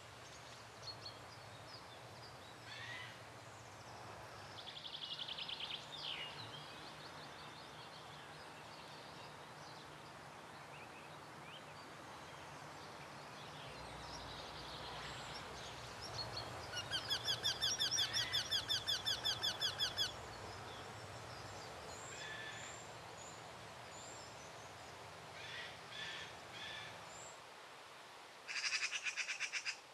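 Birdsong: several birds chirping and trilling. A fast run of repeated calls comes about halfway through and is the loudest part, and another comes near the end. A low steady hum lies underneath and stops shortly before the end.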